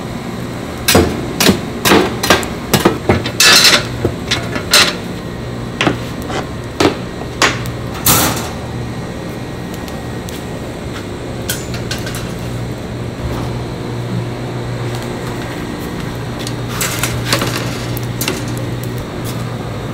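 Long-handled steel shovel knocking and scraping through a bed of charcoal in a metal grill trough, a rapid run of sharp clanks and a few longer scrapes over the first several seconds. After that a steady low hum runs underneath, and a few metallic clatters come near the end as wire grill racks are laid over the coals.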